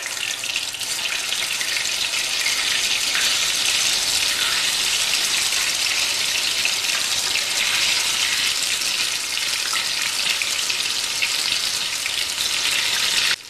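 Pieces of freshly boiled besan gatte deep-frying in hot oil in an aluminium kadhai: a loud, steady sizzle that gets a little louder after the first second and cuts off suddenly near the end.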